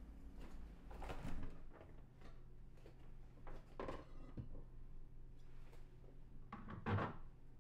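Light kitchen handling sounds: a few soft knocks and clunks as a refrigerator door is opened and a glass jar is taken off a shelf, the loudest clunk near the end. A low steady hum runs underneath from about two seconds in.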